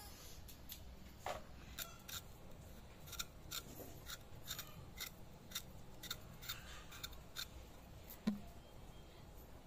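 Small curved knife scraping and paring the skin off taro corms (gati kochu) held in the hand: short crisp clicks, about two or three strokes a second, with one louder knock about eight seconds in.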